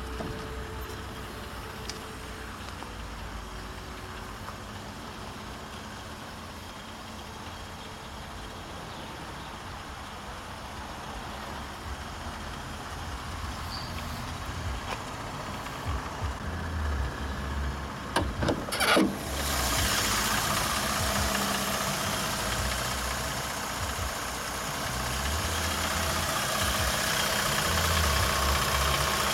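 Mercedes-Benz CLS 350's 3.5-litre V6 idling steadily. A few sharp clicks a little past halfway come as the bonnet is opened, and the engine is louder and hissier after that.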